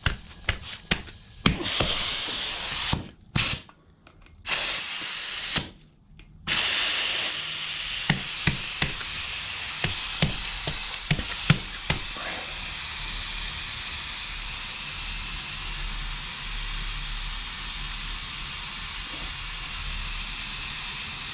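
Compressed air hissing from an inflator nozzle into a motorcycle tire to seat the bead. It comes in a few short bursts, then runs as a long steady hiss from about six seconds in, with scattered light knocks.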